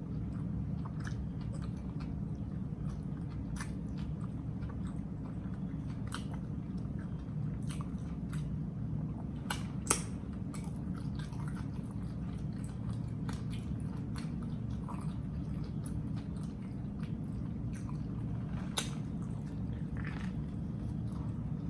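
A person chewing and biting into a chopped grinder sandwich close to the microphone: wet mouth sounds with scattered small clicks and lip smacks, a sharper one about ten seconds in. A steady low hum runs underneath.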